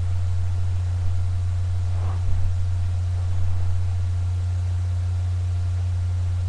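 A steady low hum under a faint hiss, with a couple of faint brief sounds about two seconds in and again a little later.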